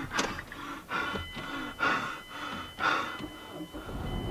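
A man breathing hard in panic: quick gasps and panting breaths, some voiced, about one a second.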